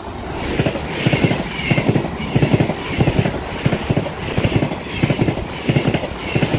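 ES1 Lastochka electric multiple unit passing close at speed: a steady rush of air and running gear, with a quick, even run of wheel knocks on the rails as bogie after bogie goes by.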